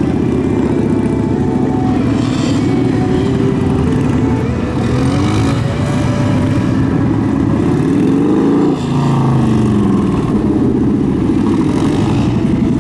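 Kawasaki Vulcan 900's V-twin engine revving up and down again and again as the cruiser is ridden through tight turns, its pitch rising and falling with each opening and closing of the throttle. About nine seconds in the engine note drops sharply for a moment, then climbs again.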